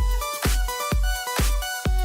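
Background electronic dance music with a steady kick-drum beat, about two beats a second, and held synth tones over it.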